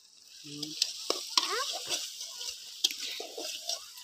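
Fish frying in a steel wok with a steady sizzle, while a metal spatula scrapes and clicks against the pan as the pieces are stirred.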